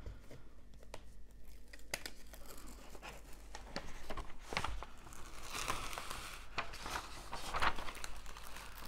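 Plastic cover film of a diamond painting canvas being peeled back from the sticky canvas and handled: irregular crinkling and crackling with scattered clicks, busiest around the middle and again near the end.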